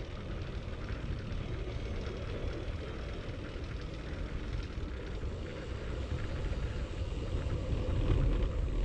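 Wind and road noise on a bike-mounted GoPro's microphone while riding along a paved street: a steady low rumble.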